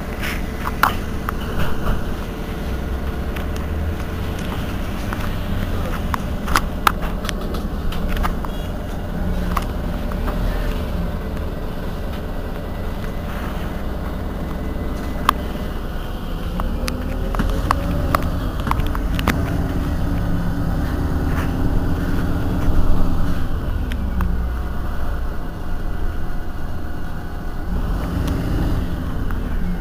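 Heuliez GX 137 Euro 6 city bus running along its route: a steady low diesel drone with scattered rattles and clicks. About halfway through, the engine note rises as the bus pulls away, and it rises again near the end.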